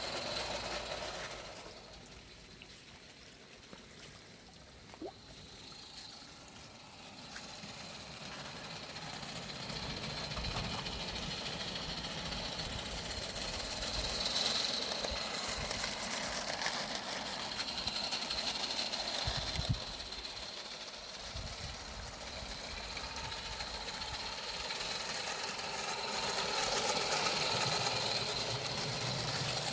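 Accucraft Ruby live-steam garden-scale locomotive running with a train, its mechanical beat swelling and fading in loudness several times. A single sharp click about five seconds in.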